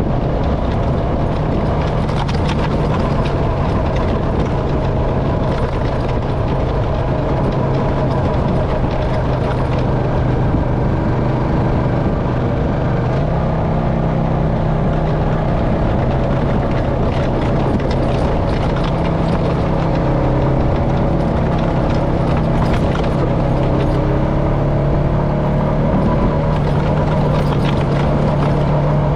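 Honda FourTrax Foreman ATV engine running steadily at trail speed, its pitch rising a little about halfway through, with tyre and wind noise on a sandy dirt trail.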